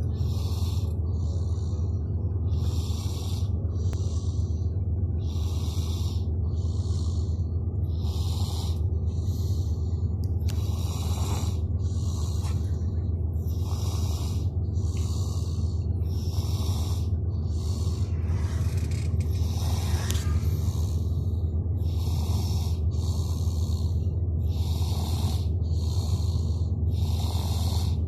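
Snoring: noisy breaths in and out that repeat steadily, one breath about every two and a half to three seconds, over a steady low hum.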